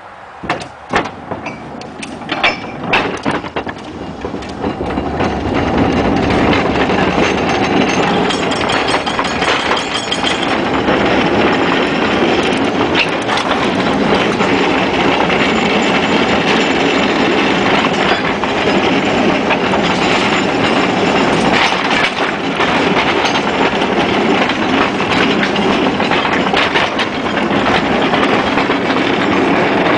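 A 1926 Whitcomb 4-ton storage battery mine locomotive and its car pulling away on narrow-gauge track. A few sharp knocks come in the first seconds, then the rattle and clatter of wheels on rail builds over several seconds and runs on steadily.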